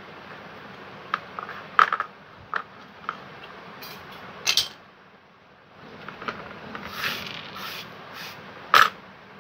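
Pieces of a rusty knife being handled: the steel blade and old wooden handle scales give a scattered series of short clicks and knocks as they are picked up and set against the table, with a cluster of softer scraping sounds near the end, over a steady background hiss.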